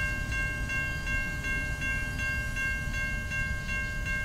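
Railroad crossing bell ringing in a quick, even beat of about three strokes a second, with a low rumble underneath. It sounds while the crossing gates lift.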